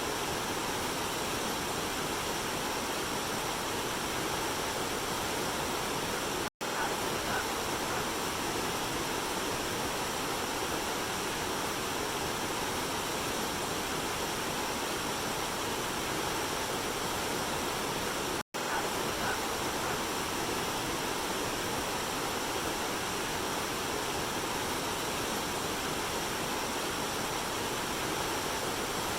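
Steady rushing water of a waterfall, an even hiss with no rhythm or events. It cuts out to silence for an instant twice, about six and eighteen seconds in.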